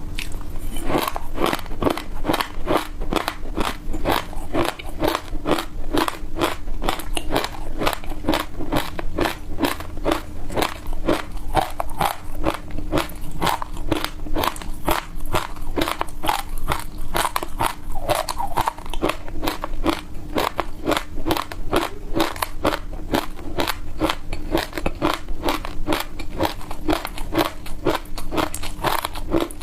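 Close-miked crunching and chewing of frozen passion fruit, a steady run of sharp crunches about three a second.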